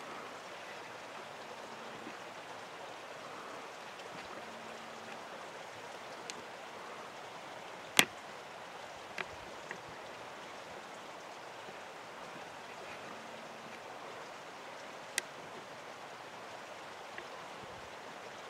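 Steady faint hiss with a few sharp clicks, the loudest about eight seconds in.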